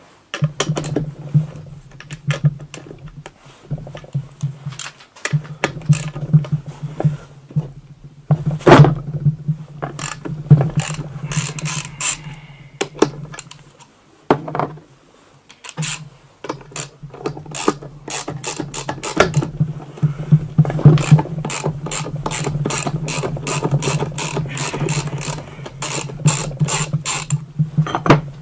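Hand ratchet wrench clicking in repeated runs while undoing nuts on a moped engine, with metal tools clinking. The clicks come thick and fast through the last third.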